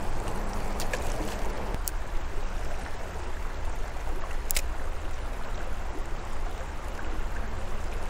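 Steady rush of flowing creek water, with a few light ticks, the clearest about halfway through.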